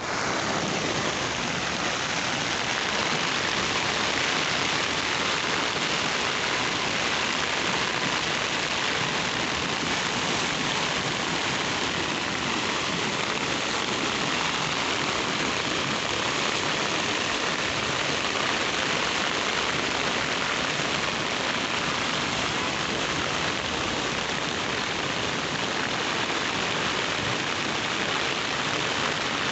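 Heavy downpour and floodwater rushing over paved ground: a steady, even hiss that does not let up.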